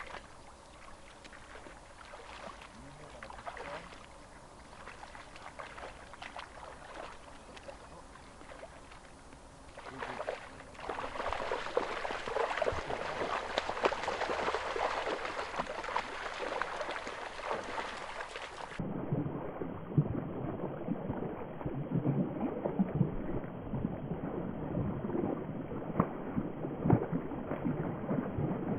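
Water splashing and sloshing in a shallow stream, irregular and choppy. It gets clearly louder about ten seconds in.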